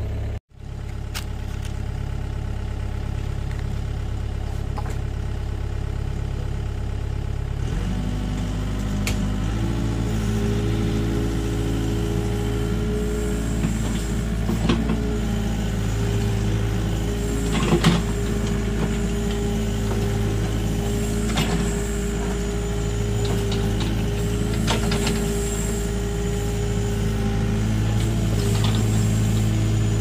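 LiuGong hydraulic excavator's diesel engine running steadily while the machine clears a bench. About eight seconds in it steps up to a fuller working note as the hydraulics take load, with a few short knocks scattered through.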